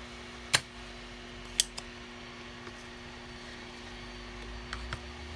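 Sumsour 858D hot air rework station blowing steadily with a fan hum and hiss. A spring-loaded solder sucker snaps sharply about half a second in, with further sharp clicks about a second later and near the end.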